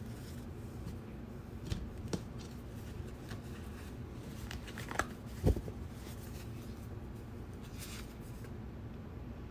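A deck of cardboard oracle cards handled by hand: shuffled, fanned and a card pulled, with a few soft clicks and one low thump about halfway through, over a steady low hum.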